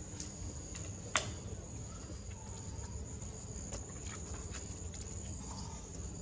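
Insects trilling steadily at a high pitch over a low rumble, with one sharp click about a second in and a few faint ticks later.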